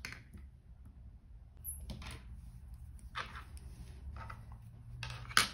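A few short rustling handling sounds and a sharper knock near the end, over a low steady hum.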